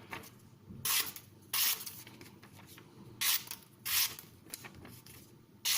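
Freshly sharpened Cold Steel Broken Skull knife in CTS XHP steel slicing through paper to test the edge: five short hissing cuts, loosely in pairs. The edge cuts cleanly.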